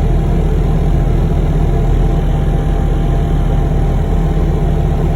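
Vehicle engine running steadily with a low, even hum, heard from inside the cab.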